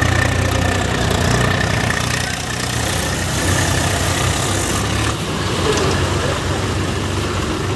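Diesel engines of two Swaraj tractors, a 735 FE and an 843 XM, running steadily without revving.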